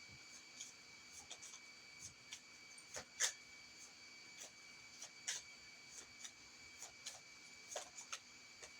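Tarot cards being handled and laid down: scattered light taps and flicks, the sharpest about three seconds in, over a faint steady high whine.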